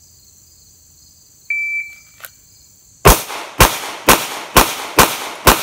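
Shot timer's short electronic start beep, then about a second and a half later six pistol shots fired about half a second apart from a Glock drawn from a holster: a Bill drill.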